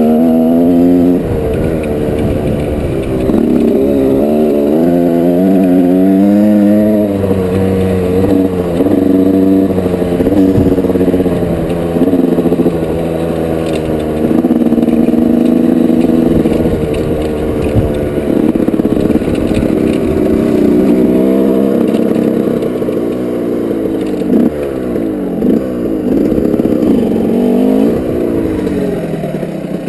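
1987 Yamaha YZ125's two-stroke single-cylinder engine being ridden hard, revving up and dropping back over and over as the throttle is worked and the gears change.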